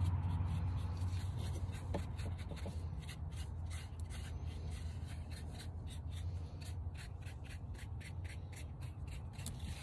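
Paintbrush bristles dry-brushing white contrast paint over a textured concrete statue, in short brushing strokes several a second. A steady low hum runs underneath.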